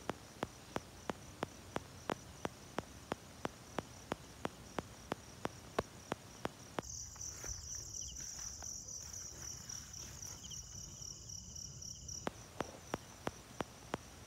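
Night insects chirring in a steady high buzz that swells louder and pulses for about five seconds in the middle, over a sharp regular ticking about three times a second.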